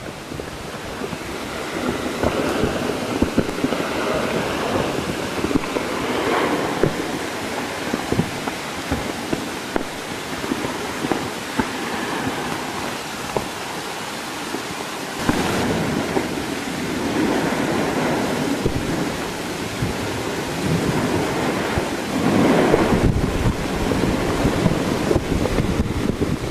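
Mount Yasur erupting: a continuous rumbling roar from the ash column jetting out of the crater vent, with a crackle of short spikes. It swells in waves and surges louder just past halfway and again near the end.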